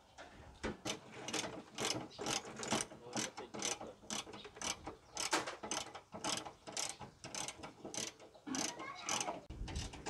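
Socket ratchet wrench clicking in quick repeated strokes, about three a second, as a bolt on a steel panel is turned by hand.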